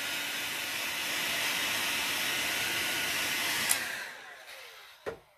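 Heat gun blowing steadily with a faint fan whine, heating a stick-on speedometer dial overlay to activate its adhesive. Switched off with a click a little before four seconds in, then its fan whine falls away as it winds down, followed by a light tap.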